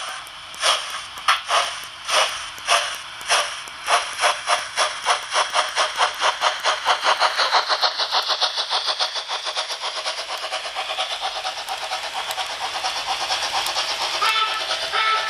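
Märklin H0 BR 01 model steam locomotive's sound decoder puffing as it pulls away: the chuffs start about two a second and quicken until they blur into a fast steady beat. Coach wheels clatter over the track rail joints as the express coaches pass.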